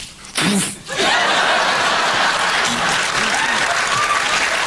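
A short vocal outburst, then a studio audience breaking into steady applause and laughter about a second in.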